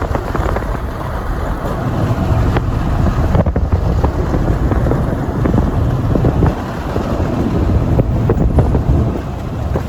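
Wind buffeting the microphone over the steady rumble of a moving road vehicle.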